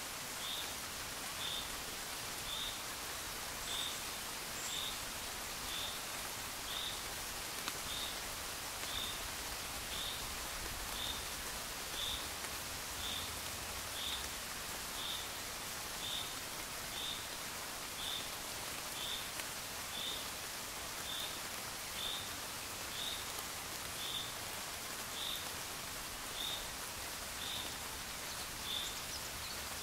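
Steady gentle rain, with a short high-pitched chirp repeating about once a second throughout.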